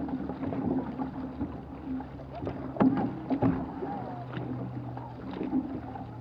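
Outrigger canoe paddles catching and pulling through choppy water, with splashing and the wash of the hull, and sharper splashes about three seconds in. A steady low hum runs underneath.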